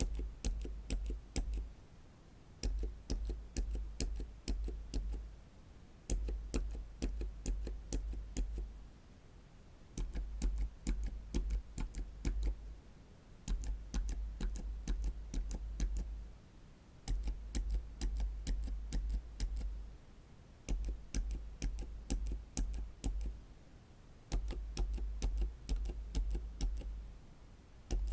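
Silent mechanical keyboard switches, Gazzew Boba silent switches and then Outemu silent switches, each pressed and released in a quick run of soft clicks. The runs come one after another with short pauses between them, one run for each switch type.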